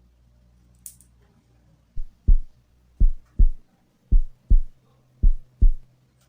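Heart sounds through a stethoscope at the mitral area: four lub-dub beats, each a pair of low thuds, a little slower than one beat a second, starting about two seconds in.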